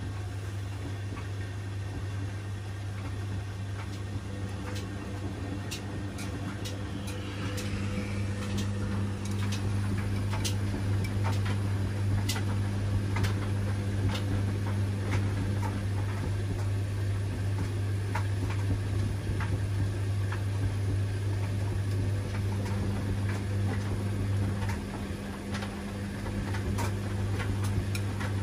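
Washing machine running a wash cycle: a steady low hum that grows louder about seven seconds in and dips briefly near the end, with scattered clicks and taps throughout.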